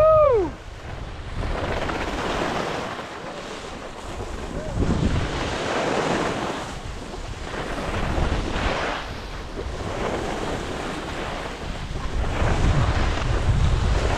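Skis scraping and carving on groomed snow, swelling and fading with each turn, under steady wind rushing over a body-worn camera's microphone. Right at the start comes a short rising-and-falling call.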